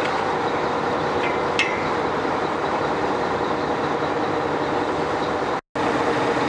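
Rescue boat's engines running steadily, heard from on deck, with a light clink about a second and a half in. The sound cuts out for a moment near the end at an edit.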